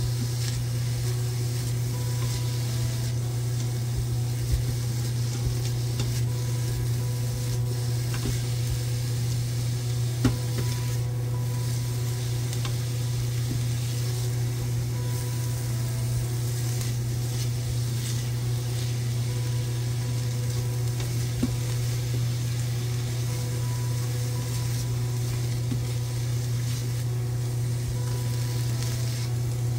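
Diced onions sizzling in oil in an Instant Pot's stainless steel inner pot on the sauté setting, stirred with a silicone spatula, with a few light knocks of the spatula against the pot, the sharpest about ten seconds in. A steady low hum runs underneath.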